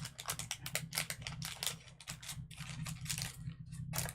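Quick, irregular small clicks, taps and crackles of paper craft pieces being handled on a tabletop, with a steady low hum underneath.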